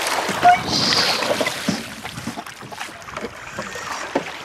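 Water splashing and handling noise in a small boat as a large brown trout is lifted in the landing net, loudest in the first two seconds, then quieter with scattered knocks and clicks.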